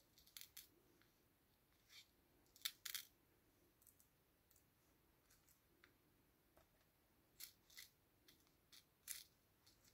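Scattered light clicks and ticks of tiny clear plastic embellishments and their small clear plastic box being handled, irregular, with a couple of sharper clicks about three seconds in and again near the end.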